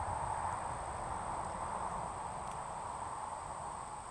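Steady chorus of insects, crickets or similar, with a thin, even high drone above it.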